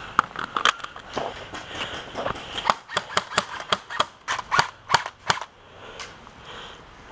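Airsoft guns firing: a run of sharp cracks in irregular single shots and short quick strings, stopping about five and a half seconds in.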